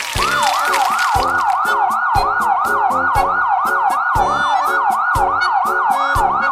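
Fast yelping emergency-vehicle siren, rising in pitch about three times a second, over background music with a steady drum beat.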